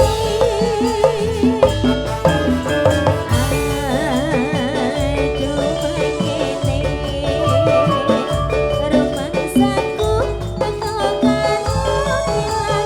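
Ndolalak folk music played loud through a large PA sound system: a steady drum beat with heavy bass under a wavering melody line.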